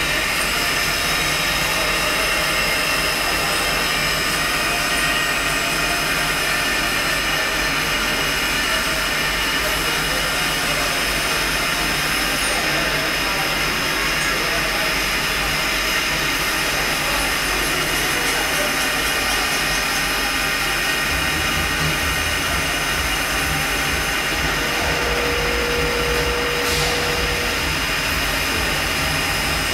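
Mori Seiki NL3000 CNC turning centre doing C-axis milling: the live-tool spindle and axis drives run with a steady multi-tone whine while the cutter mills the part held in the chuck. The low hum shifts about two-thirds of the way through.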